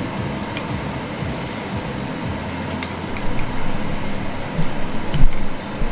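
Metal cooking utensil clinking and knocking against a frying pan as food is turned, a few scattered clicks with the loudest knock near the end, over a steady fan-like hum.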